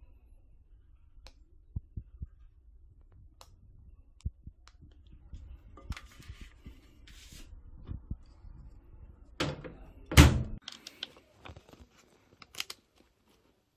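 Paper microwave-popcorn bag being handled, with scattered taps, crinkles and a faint low hum. About ten seconds in there is a loud thunk and clatter, and more crinkling of the bag follows it.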